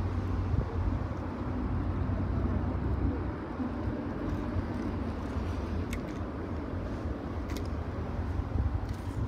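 Steady low rumble of road traffic, with a few faint ticks over it.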